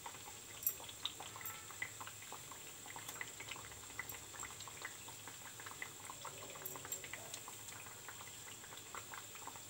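Semolina biscuits frying in oil kept on a low flame in a nonstick pan: a faint, steady bubbling sizzle with scattered small pops and crackles.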